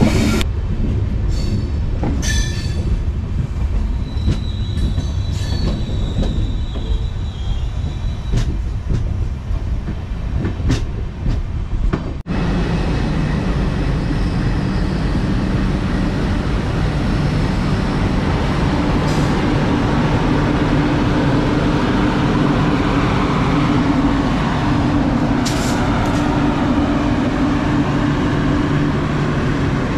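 Passenger train running, heard from a coach doorway: wheels rumbling and clicking over the rails with a faint squeal. After a sudden cut, a louder, steady rumble with a low hum.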